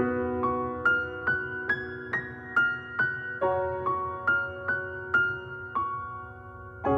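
Background music: a slow, gentle piano melody, single notes struck about twice a second over held lower notes.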